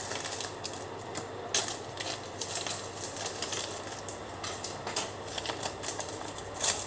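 Plastic cleaning brushes and their plastic wrappers being handled and rummaged through: a run of irregular clicks, clatters and crinkles, with a louder clatter near the end.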